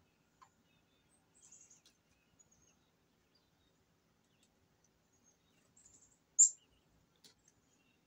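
Black-capped chickadee giving thin, high call notes: several faint ones, and one louder, sharp note that falls in pitch about six and a half seconds in.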